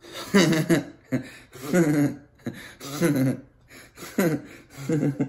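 A man laughing hard at his own joke, in repeated bursts of voiced laughter with short breaths between them.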